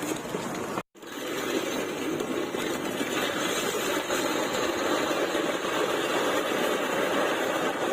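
Road roller engine running steadily, after a sudden brief drop-out in the sound about a second in.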